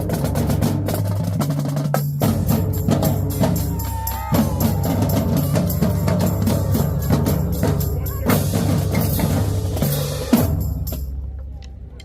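Marching drumline playing a fast cadence: rapid snare strokes and rolls over bass drums that change pitch. It ends on a sharp hit near the end and dies away.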